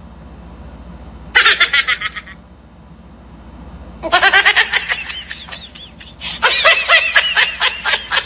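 High-pitched laughter in three fits of rapid giggling: a short one about a second and a half in, then two longer ones from about four seconds in.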